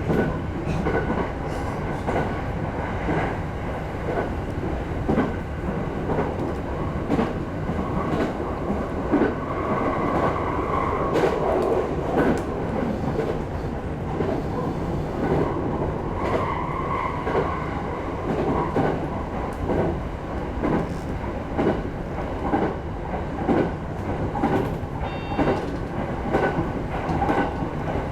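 E217 series electric multiple unit running along the line, its wheels clicking steadily over the rail joints under a constant running rumble.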